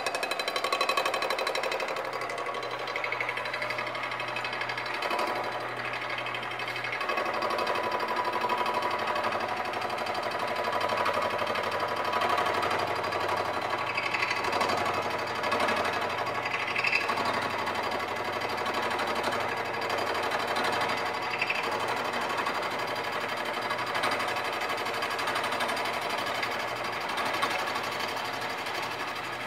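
Bridgeport milling machine running, its shop-made fly cutter cutting an O-ring groove around a shift-rod bore in a Land Rover Series III gearbox case. The machining sound fills out about seven seconds in.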